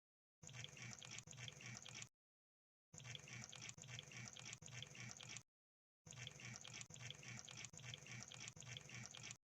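Crab sound effect: three bursts of fast, crackling clicks, each lasting one and a half to three and a half seconds, separated by dead silence.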